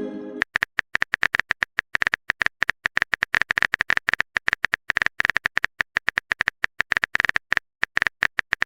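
Phone keyboard typing sound effect: a rapid, uneven string of short clicks as a text message is typed out. It opens on the fading tail of a short message-alert chime.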